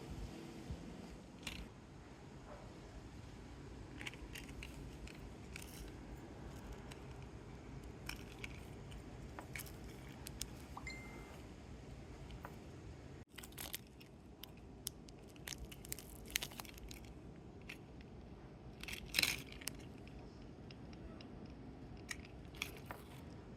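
Scattered clicks, clinks and crinkles of gachapon capsules and their toy packaging being handled, with a louder run of clicks about 19 seconds in.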